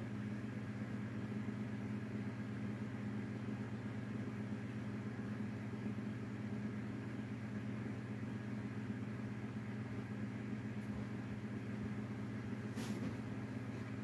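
Steady low mechanical hum with a constant pitch, and a short click near the end.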